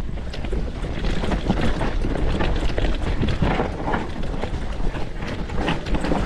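Mountain bike riding fast down a rough trail: steady wind buffeting on the microphone, with constant rattling and knocking of the bike and tyres over rocks and roots. The noise drops away at the very end.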